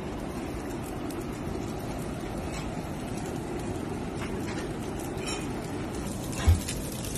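Steady kitchen background noise with a few faint utensil clicks, and one short low thump about six and a half seconds in.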